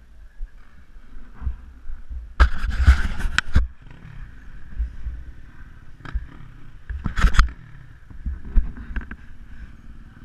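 Wind rumble and rough handling noise on an action camera's microphone: a steady low rumble, with a loud rough burst about two and a half seconds in that lasts about a second, and a shorter one around seven seconds.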